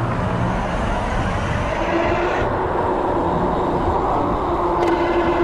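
Wind rushing over the microphone and tyre noise from a mountain bike rolling on pavement, with road traffic around. A steady whine comes in about two seconds in and holds.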